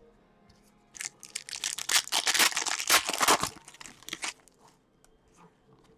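Foil wrapper of a trading-card pack being torn open and crinkled by hand, a dense crackling from about a second in that dies away after about four seconds.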